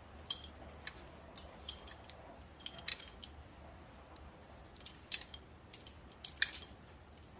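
Steel pushrods clinking against each other and the engine as they are pulled from a 4.8-litre LS V8's cylinder head and bunched in one hand: a scattered run of sharp, light metallic clinks.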